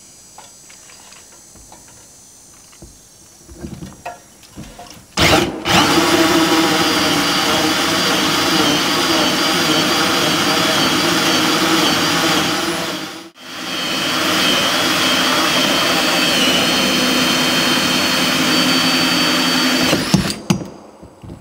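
Cordless drill spinning a hole saw in reverse to cut a hole through a plastic water tank's wall. He runs it in reverse because the teeth bite too hard going forward. It starts about five seconds in, runs steadily with a whine for about eight seconds, stops for a moment, then runs again for about seven seconds.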